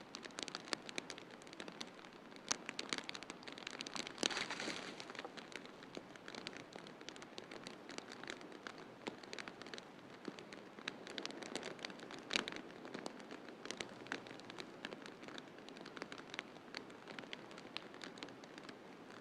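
Wood fire in a fireplace crackling: irregular sharp pops and snaps over a steady hiss, with a brief louder surge of crackling about four seconds in.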